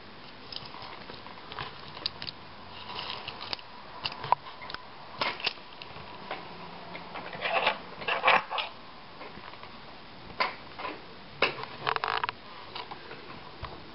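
Small screws being driven back into a laptop's screen assembly with a hand screwdriver, along with plastic parts being handled: irregular small clicks, ticks and short scrapes, busiest about halfway through.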